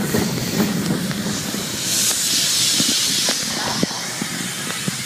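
Roller-coaster mine train rumbling and rattling along its track, with a loud hiss that swells about two seconds in and fades a second and a half later.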